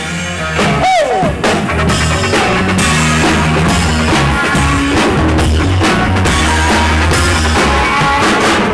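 Loud rock music: a drum kit and a steady bass line with guitar, with a short falling slide note about a second in.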